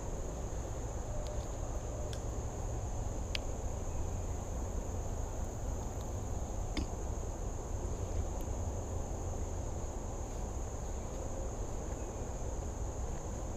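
Steady high-pitched chorus of insects, like crickets, over a low rumble, with a couple of faint clicks about three and seven seconds in.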